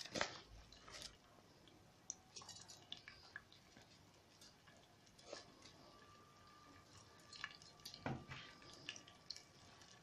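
Faint, sparse crackling and popping of washed, still-damp rice frying in oil in a pot, with a soft knock right at the start and another about eight seconds in.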